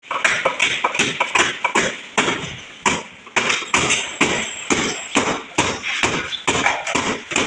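Hammer striking car body sheet metal in quick, uneven blows, each with a short metallic ring, as the dented panel is beaten back into shape. There is a brief pause a little under halfway through.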